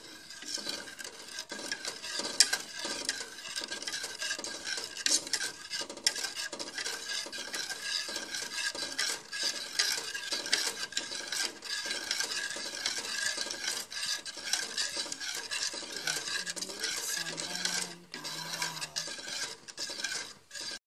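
Wire balloon whisk beating a thin liquid mixture in a pan: fast, continuous scraping and clinking of the wires against the pan, with a brief drop near the end before it stops abruptly.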